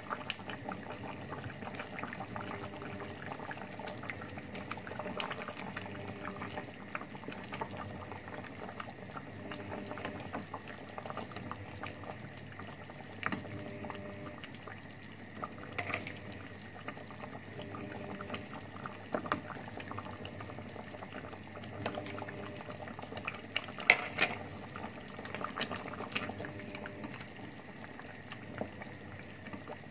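Meat, potato and carrot stew bubbling in a stainless steel pot while a wooden spoon stirs through it, with a few sharper knocks of the spoon against the pot, the loudest late on.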